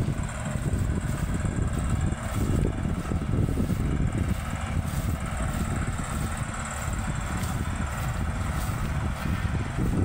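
Maxxi Bimo 102L rice combine harvester running at a distance while harvesting, a steady mechanical drone under a heavy, uneven low rumble.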